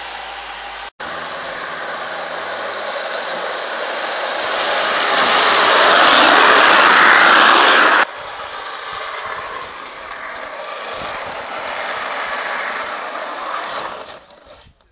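Home-built carruzzuna gravity carts rolling downhill on asphalt on steel ball-bearing wheels: a loud, gritty rolling rumble that swells as a cart closes in and stops abruptly about eight seconds in. Then a second cart's rumble, a little quieter, fades out near the end.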